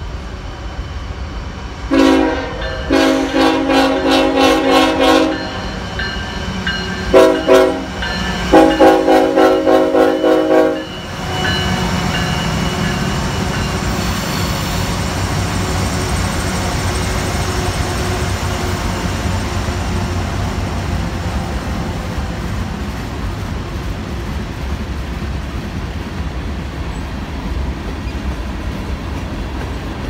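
Norfolk Southern diesel locomotive's multi-chime air horn blown in rapid stuttering blasts: a pulsing run for about three seconds, two short blasts, then another pulsing run that stops about eleven seconds in. After that comes the steady rumble of the freight train's cars rolling past close by.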